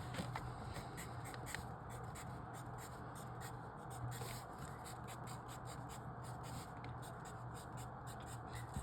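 Pencil on paper: short, quick scratchy writing strokes, many in a row, as marks are filled in, over a faint low hum.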